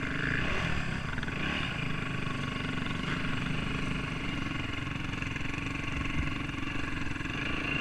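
Motor vehicle engine running steadily, an even mechanical drone.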